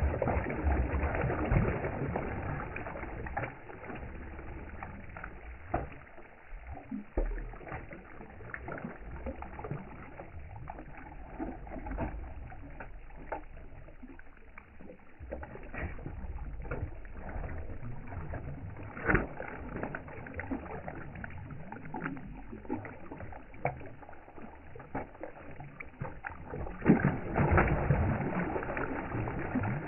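Fish splashing and thrashing at the surface of a pond as they snatch food thrown onto the water, in irregular bursts. The splashing is loudest at the start and again near the end.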